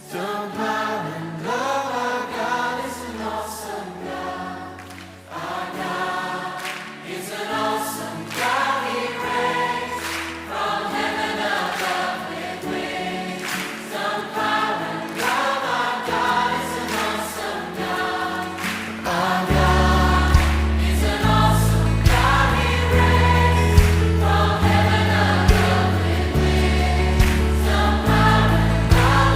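Choir singing a Christian worship song with instrumental backing and a beat; a heavy bass line comes in about two-thirds of the way through.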